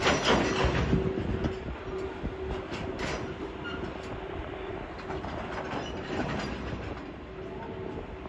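Train of ballast-loaded hopper wagons rolling away behind a Class EF81 electric locomotive, wheels clattering on the rails, loudest in the first second. A steady hum, from the locomotive's blowers, runs underneath.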